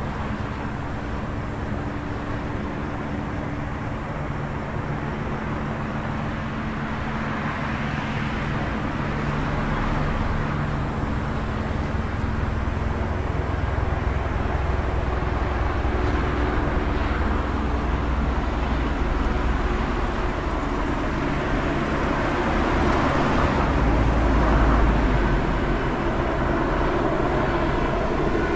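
City traffic ambience: a steady low rumble of engines with vehicles passing, swelling louder about ten seconds in and again near the end.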